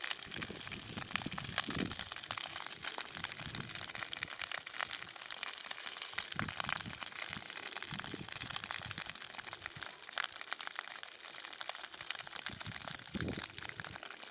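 Dry grass burning, with a dense, steady crackle of many small pops as the fire catches in the dry grass.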